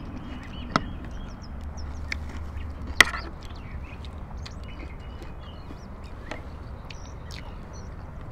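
Small birds chirping again and again, with close eating sounds: sharp clicks of a spoon on a plate, the loudest about three seconds in.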